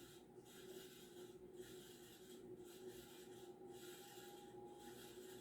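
Faint running of a Banvil Emperor ceiling fan's motor in reverse at low speed: a steady hum with a scratchy hiss that swells and dips about once a second. The scratchiness comes from worn bearings.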